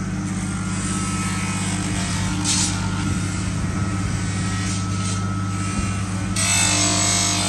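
Steady machine hum. About six and a half seconds in, a louder hissing noise starts suddenly on top of it.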